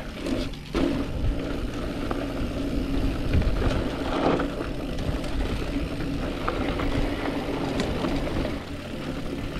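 Wind rushing over the camera microphone and knobby tyres rumbling on a dirt trail as a 2020 YT Capra mountain bike rolls along. Small clicks and rattles from the bike and trail run through a steady low hum.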